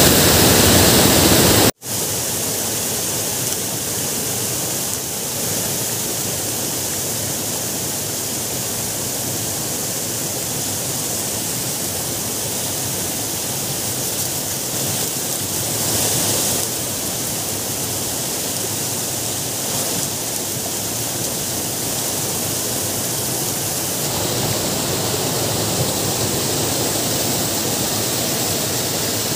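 Water from a lake's overflow rushing and foaming over rock slabs, a steady rush that cuts out for an instant about two seconds in.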